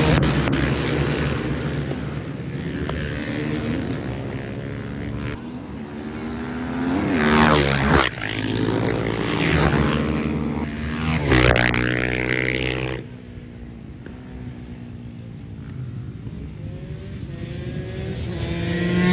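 Supermoto racing motorcycle engines revving hard, their pitch sweeping up and down with acceleration and gear changes, loudest about seven and eleven seconds in, quieter for a few seconds after that, then building again near the end.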